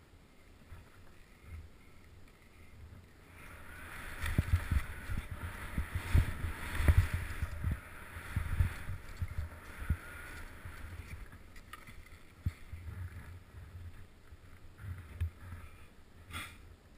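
Skis hissing and scraping over snow during a downhill run, with low thumps of wind buffeting the camera microphone. It is loudest from about four to nine seconds in and quieter before and after.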